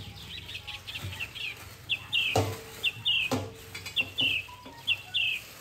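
A small bird chirping over and over: short, high, downward-sliding chirps in pairs, about once a second. A couple of light knocks come in the middle.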